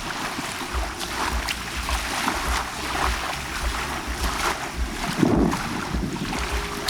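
Bay water lapping and splashing at the shore in a steady wash of small waves, with wind rumbling on the microphone. A brief, louder low sound comes about five seconds in.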